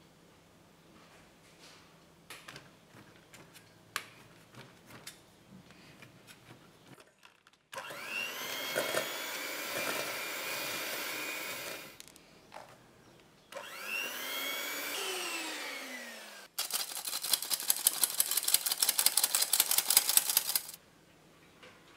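Light taps of a spoon on a stainless steel flour sifter. Then an electric hand mixer beats butter in a steel bowl in two runs: it whines up to speed each time and winds down at the end of the second. Last and loudest, the squeeze-handle sifter clicks rapidly and evenly for about four seconds as it sifts flour and cocoa into the bowl.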